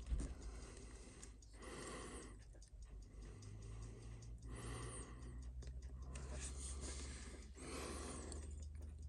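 Faint, slow breathing close to the microphone, a soft breath every few seconds, over a steady low hum.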